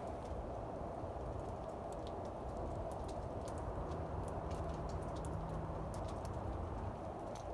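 Steady low outdoor background rumble during a snowfall, with light ticks scattered irregularly through it and a faint steady hum for a couple of seconds in the middle.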